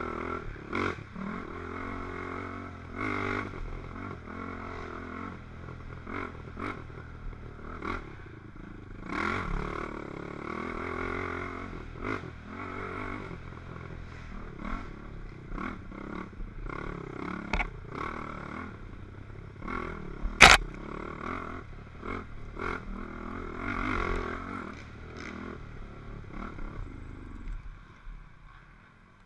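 ATV (quad) engine revving up and down as it is ridden hard over a rough, muddy trail, with the machine clattering and knocking over the bumps. One sharp loud knock about twenty seconds in, and the engine sound drops away near the end.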